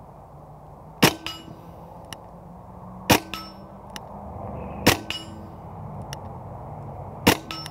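Four single shots from a Hatsan Blitz .30 caliber PCP air rifle fired on semi-auto, about two seconds apart. A fraction of a second after each shot, the pellet strikes a 50-yard steel gong, which rings briefly.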